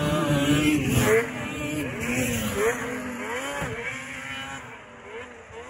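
Snowcross snowmobile engines revving up and down as the sleds ride through a set of jumps. The pitch rises and falls repeatedly, and the sound fades toward the end.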